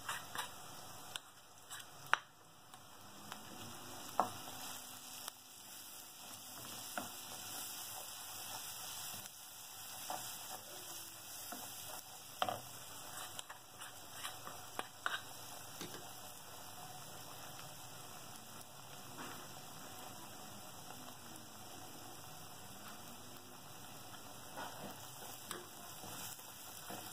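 Chilli and turmeric paste sizzling gently as it fries in hot oil in a clay pot. It is broken by scattered knocks and scrapes of a spoon and wooden spatula against the pot as the paste is stirred in.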